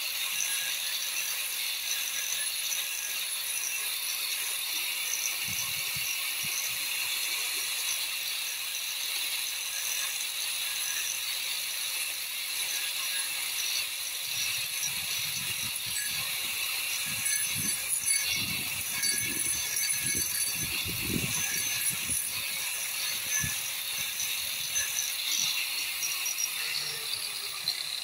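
Electric angle grinder with a tungsten carbide shaping disc running at a steady high whine as it grinds a wooden handle blank. The rasp of the disc biting into the wood grows heavier and more uneven in the middle stretch.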